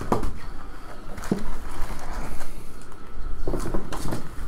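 Cardboard hobby box of trading card packs being opened by hand and its stack of wrapped packs lifted out and handled: rustling of cardboard and pack wrappers, with several soft knocks.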